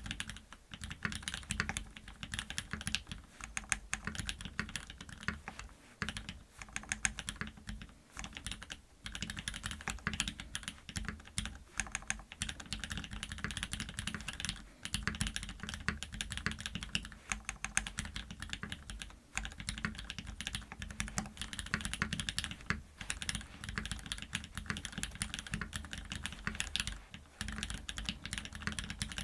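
Typing on a Duck Viper V3 mechanical keyboard with lubed, filmed Cherry MX Black linear switches (Hyperglide stems, 65 g springs) in a top-mounted FR4 plate under GMK keycaps. A steady stream of keystrokes, with a few brief pauses.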